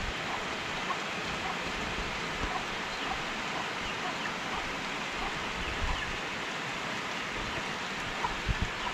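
Steady rain falling, with faint scattered drop ticks.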